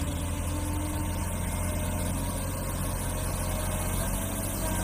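Large diesel wheel loader's engine running steadily as the machine pushes a heap of soil with its bucket.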